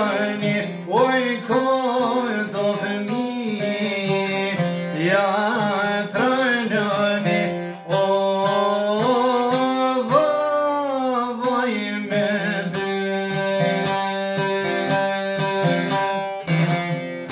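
A man sings an Albanian song to his own strummed long-necked lute. About twelve seconds in the voice stops and the lute plays on alone with steady repeated strums.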